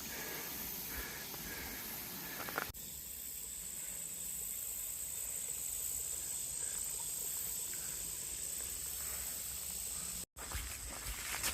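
Insects droning steadily in woodland, a high, even hiss that changes suddenly about three seconds in to a steadier high whine, dropping out briefly near the end.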